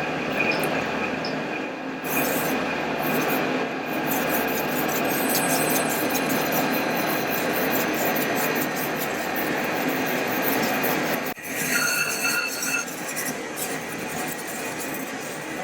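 Kitchen knife blade being stroked on a whetstone: a steady, continuous scraping of steel on stone with faint squealing tones, which breaks off briefly about 11 seconds in and then resumes.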